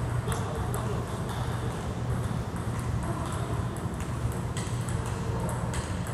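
Table tennis balls bouncing, heard as scattered sharp clicks at irregular intervals over a steady low hum.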